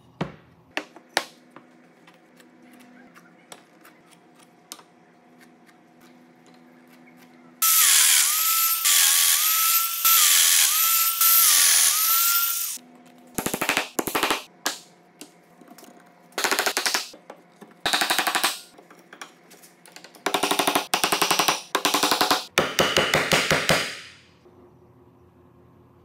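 A few sharp taps, then a handheld power tool runs for about five seconds with a whine that dips and steps in pitch under load. It is followed by seven short bursts of fast hammering from the power tool.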